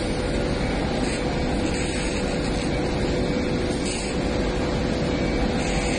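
Engine of a loaded yard vehicle running steadily as it drives, an even noise with a constant hum in it.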